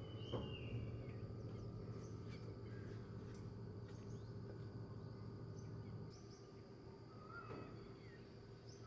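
Faint rainforest ambience: insects droning in steady high tones, one of them pulsing, with a few short bird chirps and calls scattered through and a low steady hum underneath.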